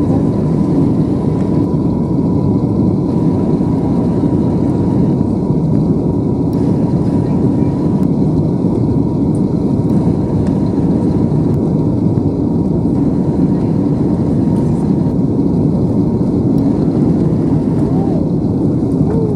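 Steady cabin noise inside an Airbus A320 airliner on approach for landing: the engines and rushing airflow make a loud, even roar, with a faint steady whine held above it.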